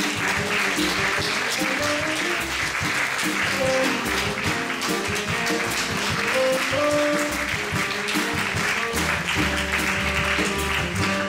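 Music playing while an audience applauds throughout.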